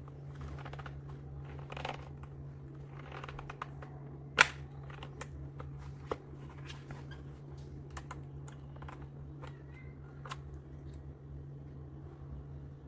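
Typing on a Redragon K596 Vishnu mechanical keyboard with linear red switches: irregular key clacks, one much louder clack about four seconds in, over a steady low hum.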